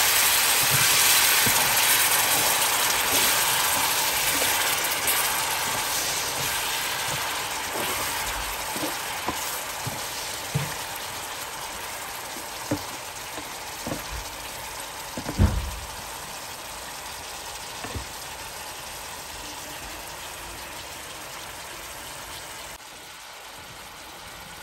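Spiced egg-curry sauce sizzling and bubbling in a frying pan: a hiss that grows gradually quieter. A few short knocks of a spatula against the pan come in the middle, the loudest about two-thirds of the way through.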